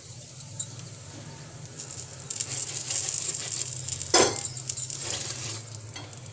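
Aloo paratha frying on a tawa, sizzling in oil as it is brushed and pressed with a metal spatula; the sizzle picks up about two seconds in, with a sharp metallic clink of the spatula on the pan about four seconds in.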